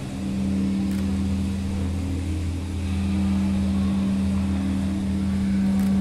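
A steady, deep drone of a few held tones with no break, with two faint clicks, one about a second in and one near the end.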